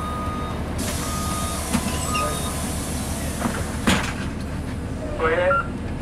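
Cabin of a Blue Bird CS transit bus with its Cummins ISC diesel running in a low steady rumble. A warning beeper sounds short tones about once a second over the first couple of seconds, while a long hiss of compressed air starts about a second in. A sharp clack comes about four seconds in, and a brief wavering squeal near the end.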